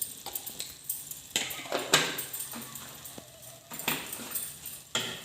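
A spoon knocking and scraping in a kadhai as ginger paste roasting in ghee is stirred, a series of separate clinks and short scrapes.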